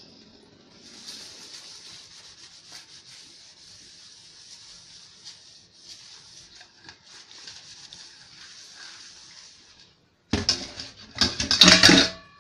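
Dish sponge scrubbing a soapy stainless steel bowl, a faint steady rubbing. Near the end, about two seconds of loud clatter and ringing as stainless steel bowls and pots knock together in the steel sink.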